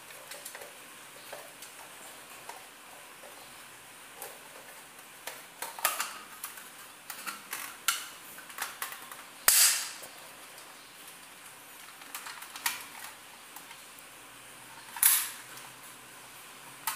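Plastic clicks, rattles and snaps of a folding FMG-9 spring airsoft gun being unfolded by hand and its parts locked into place. Two louder snaps come about halfway through and near the end.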